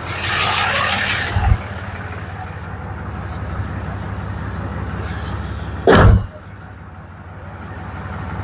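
Cummins diesel engine idling steadily, with a short hiss near the start, a knock about a second and a half in, and one loud clunk about six seconds in.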